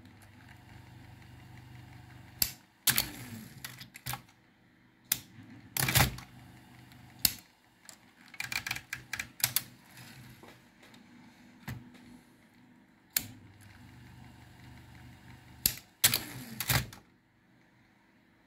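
Olympia electric typewriter's motor humming, then switched off and running down with a falling pitch; this happens twice. Sharp mechanical clacks from the typewriter come in between, with a quick run of rattling clicks midway.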